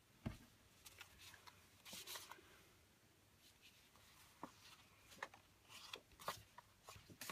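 Faint, scattered rustles and light taps of paper journaling cards being handled and slid into the pockets of a plastic page protector.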